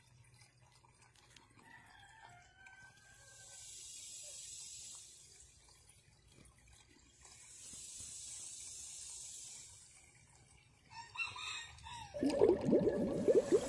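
A rooster crowing faintly in the distance about two seconds in, over a quiet yard where a high hiss swells twice. Near the end a much louder rushing noise sets in.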